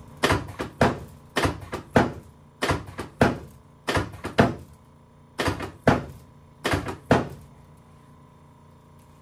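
Drop sections of a chiropractic drop table falling under thrusts on a patient's back, making a series of sharp thunks, mostly in pairs about half a second apart. The thunks stop about seven and a half seconds in.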